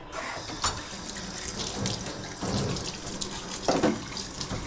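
Water running from a tap into a sink, with a few short knocks.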